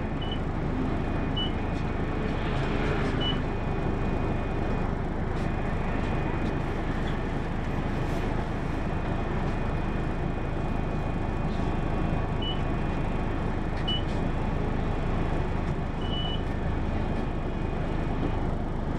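Hino PA-KR234J1 city bus running, heard from inside: a steady drone of engine and road noise, with a few brief high-pitched beeps scattered through.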